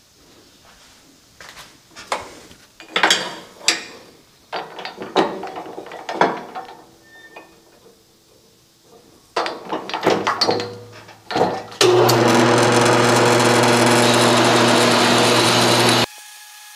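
Metal clanks and knocks as pipe is set in the vise of a JET horizontal metal-cutting band saw. About twelve seconds in the saw comes on and runs steadily with a low hum and a hiss, then cuts off suddenly near the end.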